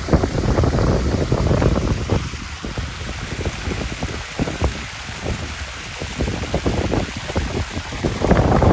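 Wind buffeting the microphone in irregular gusts, a loud low rumble that swells and dips, strongest near the end.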